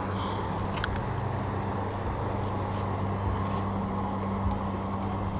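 A boat motor running with a steady low hum, and one sharp click about a second in.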